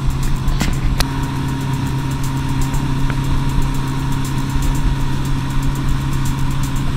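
A boat's engine running steadily at cruising speed as a steady drone, with wind and water rushing past the hull. A sharp click about a second in.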